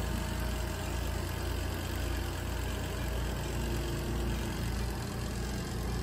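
ZENY mini twin-tub washer's spin dryer running at speed, a steady low motor hum with a whirring drum, spinning the water out of the laundry.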